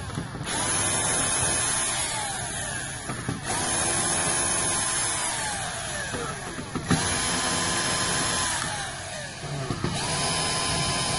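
Cordless power screwdriver backing out the screws that hold a TV power supply board, run in about four bursts. Each burst holds a steady motor whine, then slides down in pitch as the motor winds down.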